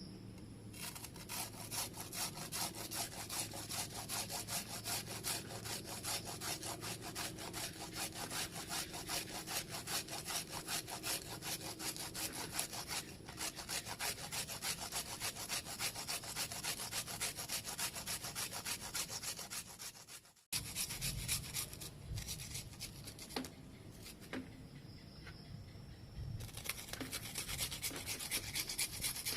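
Bilimbi (wuluh starfruit) being rubbed back and forth on a hand grater in rapid, regular scraping strokes, several a second. The fruit is being grated to a smooth pulp. The strokes break off briefly about two-thirds through, go quieter and rougher for a few seconds, then pick up again near the end.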